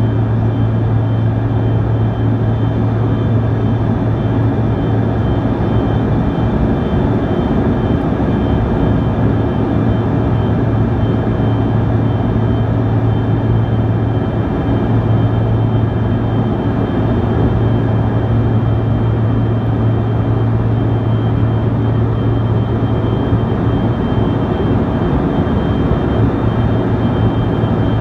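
Cabin noise inside a Bombardier CRJ-200 airliner in flight, its rear-mounted GE CF34 turbofans running at steady power: a loud, even drone with a low hum and a faint high whine.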